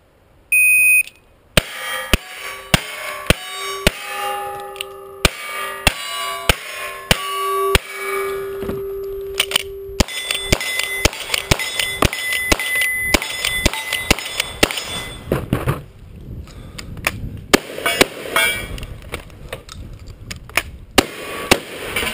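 Cowboy action shooting stage: a shot timer's start beep, then about twenty seconds of rapid gunshots from pistols, a rifle and a shotgun, with steel plate targets ringing after hits. The stage is shot clean, every target hit.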